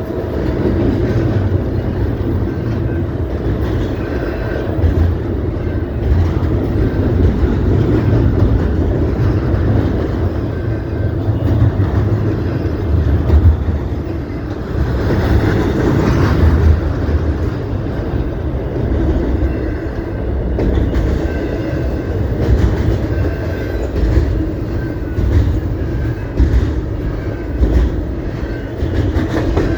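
CP Rail train rolling past, its wheels making a steady loud rumble and clickety-clack over the rail joints.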